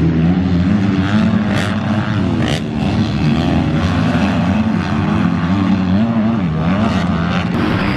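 Several motocross dirt bikes racing up a hill together, their engines revving hard and changing gears, so the overlapping engine notes keep rising and falling.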